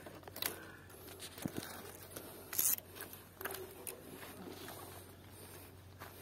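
Leafy branches of thorny scrub rustling and scraping as they are pushed aside by hand, in short irregular bursts, the loudest about two and a half seconds in.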